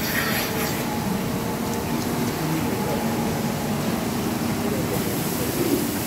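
Steady running din of a rotary milking parlour's machinery, a constant hum carrying a few steady low tones, with a brief hiss in the first second.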